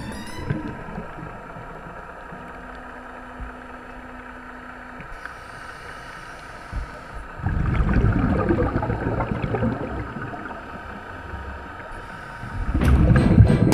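Underwater sound of scuba exhaust bubbles: a steady faint hum with a few high tones, then a loud low rush of bubbling about halfway through and again near the end as a diver's regulator vents exhaled air.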